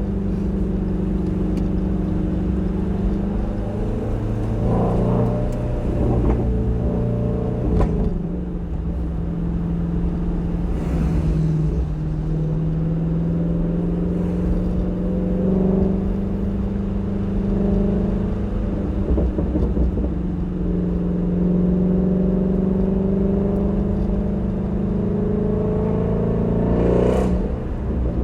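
Shelby GT350R's flat-plane-crank V8 running on the move at moderate revs, its pitch drifting slowly up and down with the throttle. Two brief sharp cracks cut through, about eight seconds in and near the end.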